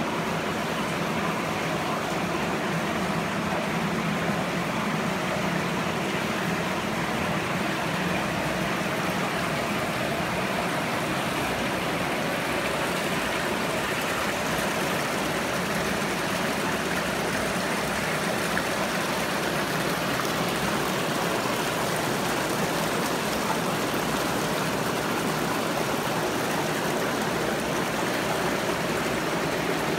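Steady rush of running water from an aquarium system's drain plumbing and sump filter, with no breaks or changes.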